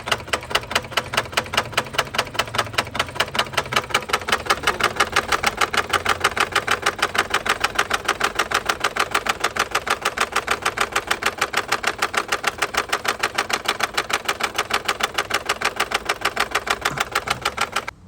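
MG HS 1.5 engine running at idle with a loud, rapid, evenly spaced knocking clatter, stopping abruptly near the end. The mechanic traces the noise to a broken intake camshaft.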